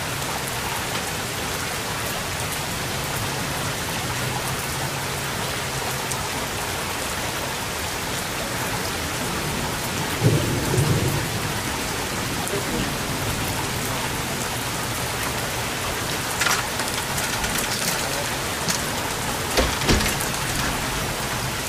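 Steady rain falling, with a short, louder low rumble of thunder about ten seconds in. A few sharp ticks near the end.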